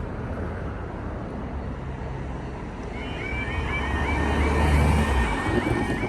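UK level crossing yodalarm starting up about three seconds in, a repeating warbling alarm tone, over the low rumble of a road vehicle's engine, which swells near the middle and fades before the end.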